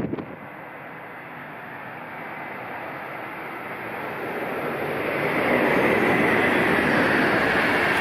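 A train approaching and passing at speed on a high-speed line: a rushing noise swells over about two seconds, about halfway in, and then stays loud and steady. A brief gust or knock on the microphone comes at the very start.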